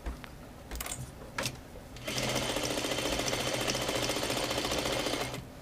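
Sewing machine stitching a straight seam through two layers of fabric. After a couple of soft clicks it runs for about three seconds at a steady, rapid stitching rhythm, then stops near the end.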